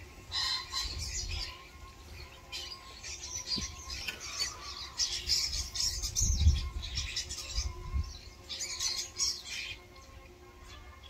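A flock of common starlings, mostly brown juveniles, calling from a feeding table: harsh squawks and scratchy chatter that come in clusters, with short quiet gaps between them. A few low thumps are mixed in, the loudest about six and a half seconds in.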